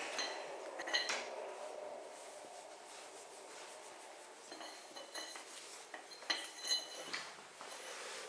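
A puppy pushing and mouthing a small metal object on a tile floor, knocking it about so that it clinks and rings against the tiles: a few sharp clinks about a second in, then a run of clinks and scrapes over the last few seconds.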